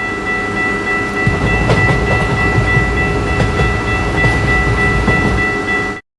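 Cartoon train sound effect: a train running with a low rumble, scattered clicks and a steady high tone, cutting off abruptly near the end.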